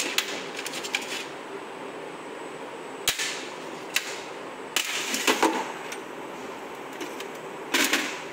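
Irregular sharp metallic clicks and clinks as small screws are handled and set into the aluminium housing of a Bosch CP3 diesel high-pressure pump. The sharpest knock comes about three seconds in, with a cluster of clicks around five seconds and another near the end.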